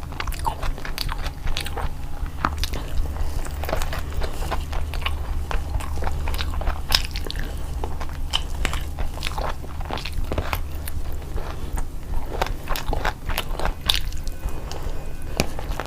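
A person eating close to the microphone: steady chewing and biting with frequent irregular crunches and clicks, over a low steady hum.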